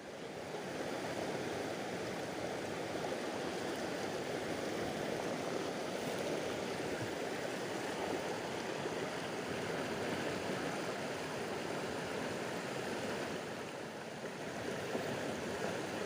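Fast river current rushing steadily, a continuous even wash of water noise.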